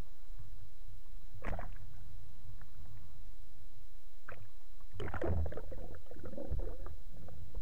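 Sea water sloshing and splashing around a speargun-mounted camera as it dips in and out of the surface, over a steady low rumble of water against the housing. Splashes come about a second and a half in and again about five seconds in.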